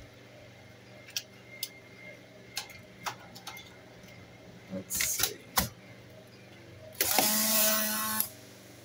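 Polaroid SX-70 instant camera cycling: a few sharp clicks about five seconds in, then its small motor whirring for about a second near the end.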